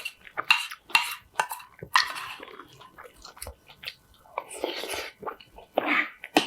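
A person chewing food close to the microphone: irregular bursts of wet chewing with crunchy bites and sharp clicks.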